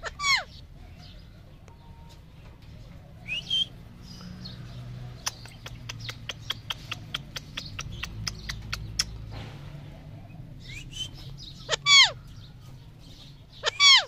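Psittacula parakeets calling: loud harsh screeches that fall steeply in pitch, one near the start and two close together near the end, with a few shorter calls between. In the middle comes a run of quick sharp clicks, about four or five a second.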